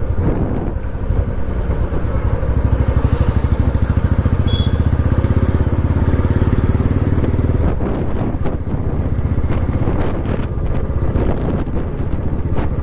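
Royal Enfield motorcycle engine running as the bike is ridden, a steady low pulsing beat.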